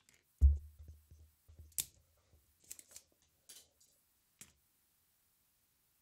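Handling noise from a circuit board and soldering iron on a workbench during desoldering. A dull thump about half a second in, then several light clicks and scrapes over the next few seconds.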